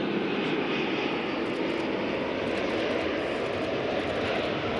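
Jet engines of a Boeing 787-8 Dreamliner landing and rolling out on the runway, a steady loud rush of engine and air noise.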